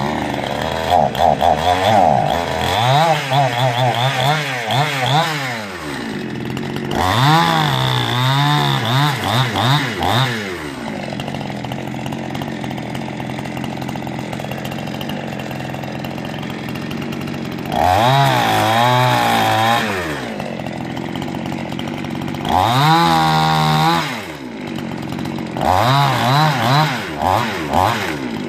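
Chinese-made two-stroke chainsaw idling and revved in five bursts, its pitch rising and falling with repeated throttle blips before settling back to idle each time.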